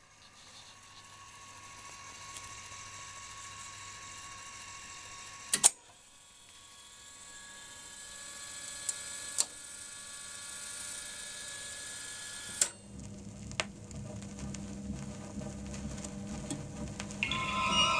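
The overhauled mechanism of a Columbia JB-670 record player running: a steady motor hum broken by several sharp mechanical clunks as it cycles. Near the end, music from the record starts playing.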